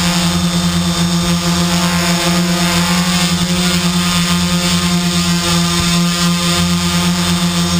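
Electric motors and propellers of an Arducopter quadcopter, heard from the GoPro mounted on its frame, humming at a steady pitch in hovering flight.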